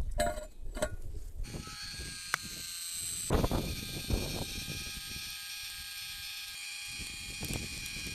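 Greenworks cordless electric jack's motor whining steadily from about a second and a half in, driving a log up against a cross-shaped splitting wedge, with a few dull knocks along the way.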